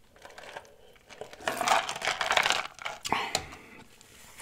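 Ice cubes clinking and rattling in a clear plastic cup as it is tipped up to drink, then a short knock about three seconds in as the cup is set down on the table.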